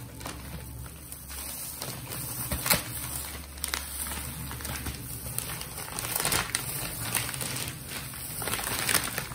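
Thin plastic bag crinkling and rustling as gloved hands pull it open and off a cardboard box, with irregular sharp crackles, the loudest about two and a half seconds in.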